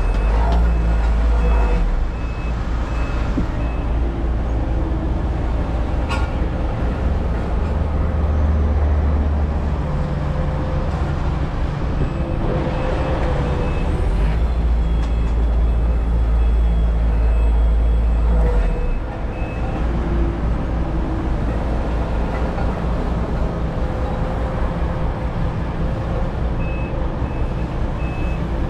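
Diesel engines of paving machinery running steadily, with a reversing alarm beeping at a steady pace near the start and again near the end.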